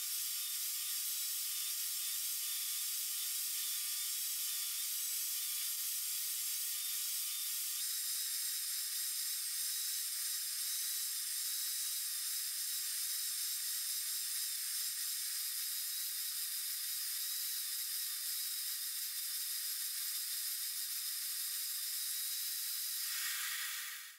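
Table saw running steadily while a Douglas fir cylinder is turned against the tilted blade to round its bottom edge, heard as a thin, even hiss with no low rumble.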